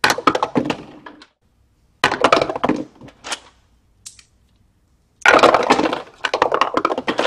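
Handfuls of small dice clattering down through a dice tower and spilling out into its tray, in several bursts of rattling with short silent gaps between.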